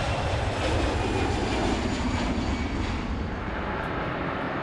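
Jet airliner engines running: a loud, steady rumble with a faint high whine that fades within the first two seconds, the noise easing a little after about three seconds.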